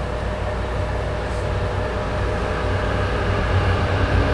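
Low rumble of an approaching CSX freight train's diesel locomotives, with a steady hum above it, growing slowly louder.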